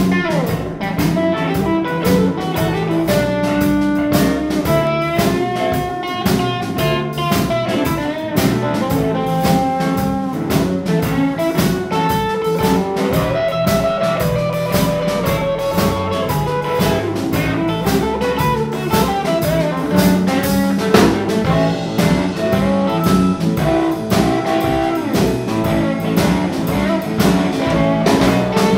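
Live blues band playing an instrumental passage: a lead electric guitar plays single-note lines with string bends over electric bass and a steady drum-kit beat.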